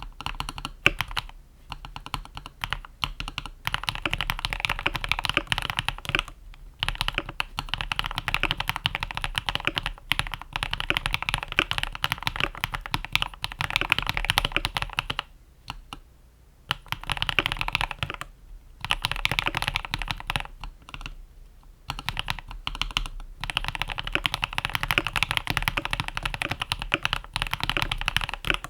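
Typing on a Cox Black Pearl mechanical keyboard with lubed and filmed Akko CS Crystal switches and PBT Cherry-profile keycaps, modded with PE foam, tape and the Holee mod. The key presses come in fast continuous runs, broken by a few short pauses.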